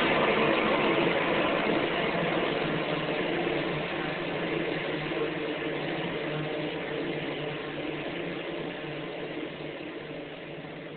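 Dense electronic noise drone with a steady low hum beneath it, played live on a synthesizer and laptop, fading steadily away.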